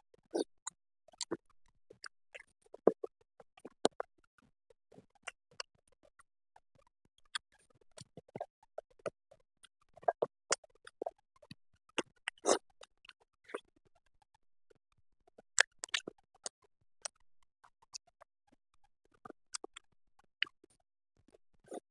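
Close-miked eating sounds of a person eating biryani by hand: chewing and lip smacks, with fingers squishing rice and scraping the plate. They come as irregular short clicks and smacks with quiet gaps between.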